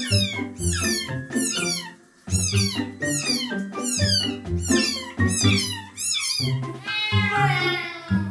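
A domestic cat meowing in complaint while it is bathed under a shower head, ending in one long falling yowl near the end, over background music with a steady beat.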